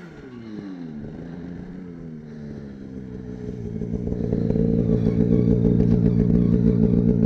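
Snowmobile engine: its pitch falls away over the first couple of seconds, then from about three seconds in it grows loud and holds steady at high revs as a sled climbs the steep slope.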